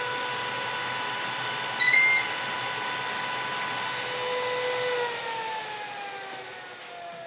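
Ninja Foodi OL701 air-fryer fan running with a steady whine and rush of air. A short electronic beep about two seconds in signals the end of the cook cycle, and about five seconds in the fan starts spinning down, its whine falling in pitch.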